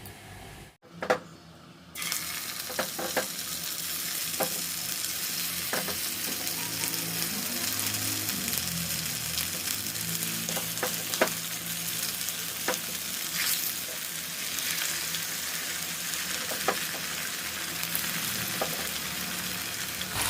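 Marinated chicken pieces deep-frying in hot oil in a kadai: a steady sizzle that starts about two seconds in, with scattered crackles and pops.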